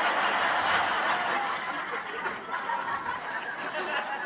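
Audience laughing at a stand-up punchline, loudest at the start and slowly dying down.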